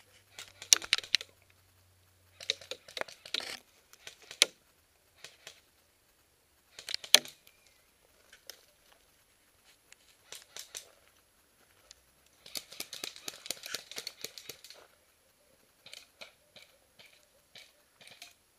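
Footsteps crunching and rustling through dry leaf litter and twigs in irregular bursts, with a few sharp snaps and a longer stretch of dense crackling about two-thirds of the way through.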